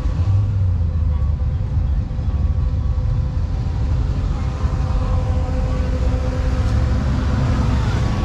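Car engine running at low speed, a steady low rumble.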